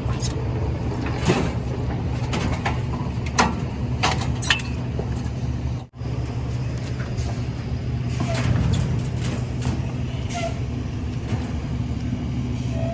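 A vehicle engine idles steadily, with scattered knocks and clanks over it, mostly in the first half.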